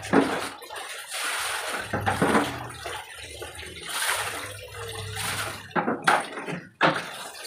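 Water scooped from a plastic bucket and poured out, splashing onto a tiled floor several times in a row.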